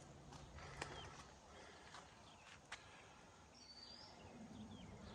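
Near silence: faint outdoor background with two sharp clicks, one about a second in and one near the three-second mark, and a few faint bird chirps in the second half.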